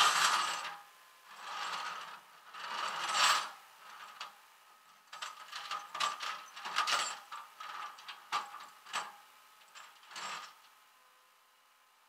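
Tow chain rattling and clinking as it is pulled and handled on a flatbed tow truck's deck: three rattling bursts, then a run of quick metal clinks that stops a little before the end.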